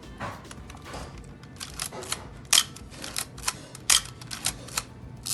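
Nikon F 35 mm SLR worked by hand: a string of sharp mechanical clicks as the shutter and mirror fire and the film is advanced, the two loudest clicks about two and a half and four seconds in. The shutter is working properly.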